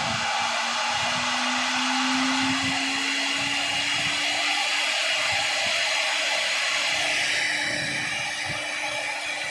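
CNC wood router's spindle motor running with a steady hissing whine, its pitch rising slightly over the first few seconds and then holding steady.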